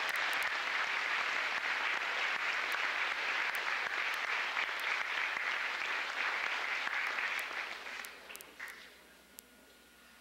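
Crowd applause, steady and dense, dying away about eight to nine seconds in.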